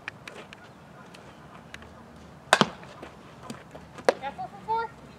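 Softball infield practice: a sharp crack with a ringing tail about two and a half seconds in, the sound of a bat hitting a ground ball, then about a second and a half later a smack of the ball into a fielder's glove, followed by a short call from a voice. Lighter knocks fall in between.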